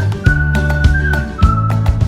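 Background music with a steady beat and bass under a high, whistled melody of held notes.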